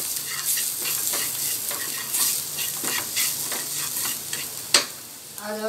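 Diced onion and capsicum sizzling in oil in a non-stick frying pan while a wooden spatula stirs and scrapes them around, with one sharp knock near the end.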